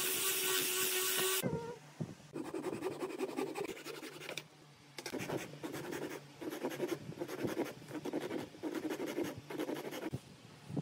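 An angle grinder with a sanding disc running against a wooden stick with a steady whine, cutting off about a second and a half in. Then a hand saw cutting through a small wooden block in quick back-and-forth rasping strokes, in several runs with short pauses.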